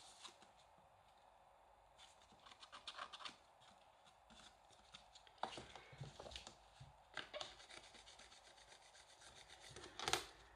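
Cardstock being handled and rubbed as a glued paper piece is pressed into place: faint scratching and rustling in several short spells, with a louder crackle near the end.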